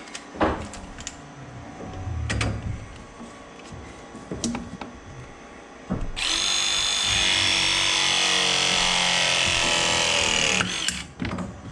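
A few handling knocks, then a cordless pipe press tool runs a press cycle, its motor running steadily for about four and a half seconds before stopping abruptly.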